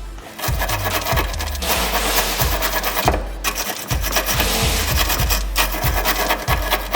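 Background music with a steady beat, over a continuous rough scraping, rasping noise.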